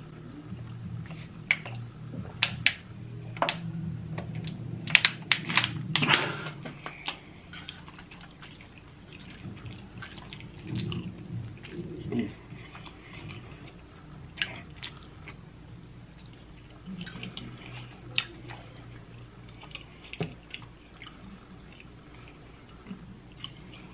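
Close-miked chewing and wet lip smacks of a person eating shrimp Alfredo pasta, with a run of sharp smacking clicks in the first several seconds and sparser chewing after.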